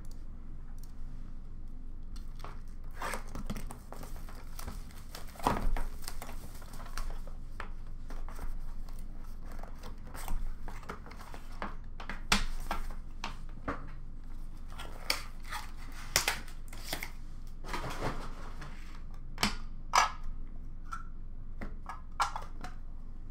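Hands opening and unpacking a cardboard trading-card box: lid flaps folding, paper and packaging crinkling and tearing, with irregular sharp clicks and knocks.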